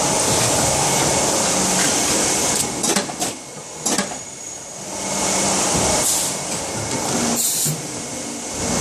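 Plastic injection moulding machine working a bucket handle mould through its automatic cycle: a steady machine hum, a cluster of sharp clacks around three seconds in as the mould opens and the ejectors push the parts out, then two short hisses near the end as it closes again.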